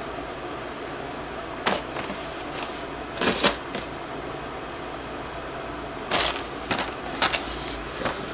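Cardboard and plastic packaging being handled, in several short bursts of rustling and scraping over a steady background hiss.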